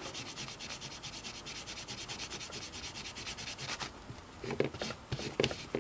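A small carbon disc from a sewing-machine foot pedal's carbon pile being rubbed quickly back and forth on a textured paper towel, a rapid scratchy scrubbing of about eight strokes a second that stops a little before four seconds in, followed by a few short handling sounds near the end. The rubbing scours burned carbon deposits off the disc face.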